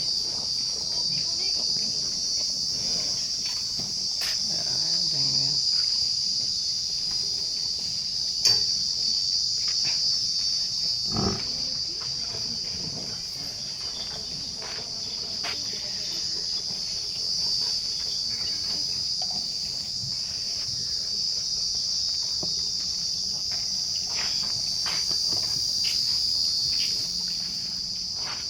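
Insects chirring in a steady high-pitched drone, with a few scattered knocks, the sharpest about eight seconds in.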